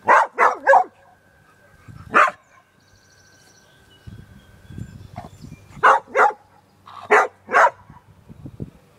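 Dog barking in short sharp bursts: three quick barks at the start, a single bark a little after two seconds in, then a run of four or five more between about five and eight seconds.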